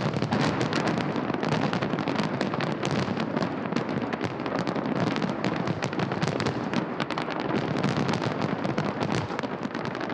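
Fireworks salute going off as a continuous dense crackle of many small sharp bangs, with no pauses.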